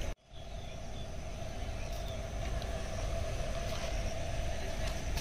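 Steady outdoor background noise with a strong low rumble and a steady mid-pitched hum, with a few faint high chirps; the sound cuts out for an instant just after the start, at an edit.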